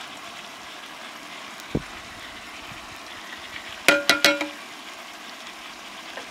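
Three quick metallic clinks about four seconds in, each leaving a short ringing tone: a small spice cup knocking against the rim of a metal cooking pot while spice is shaken onto the lamb. A steady hiss sits underneath, with one dull knock about two seconds in.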